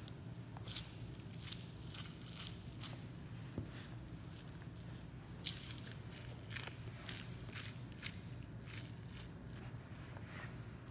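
Butcher's knife slicing through the fat and meat of a Wagyu beef short plate, with fat tearing away: a run of short, crisp, irregularly spaced cutting sounds over a steady low hum.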